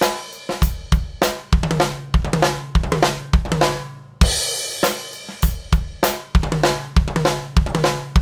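Drum kit playing a bar of groove on bass drum, snare and hi-hat that opens on a crash, then a bar of four-stroke ruffs: a bass drum grace note, two quick hand grace notes and a main note, moved around the kit. The two bars are played twice, the repeat opening on another crash about four seconds in, and the last stroke is left to ring.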